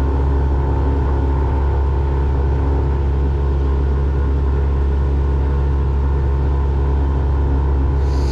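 Boat's outboard motor running at a steady, constant speed, a loud even drone with a deep low rumble. A brief high chirp sounds near the end.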